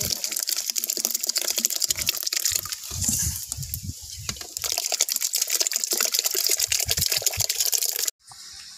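Wet, soaked coarse-ground pearl millet sliding from an aluminium vessel into a large pot of steaming water, a gushing, crackly hiss with a few dull thuds. It cuts off abruptly shortly before the end.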